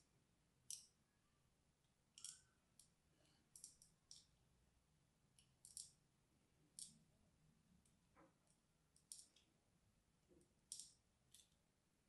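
Knife blade cutting and snapping into a dry, crosshatch-scored bar of Palmolive soap: irregular crisp clicks, some coming in quick pairs.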